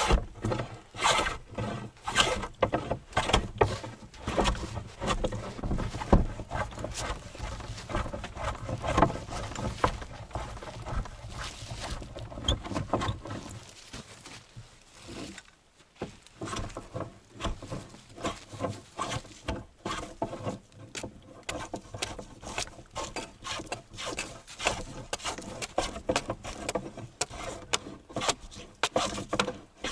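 Hand woodworking on boards: a quick, irregular run of short strokes and knocks, with a brief lull partway through.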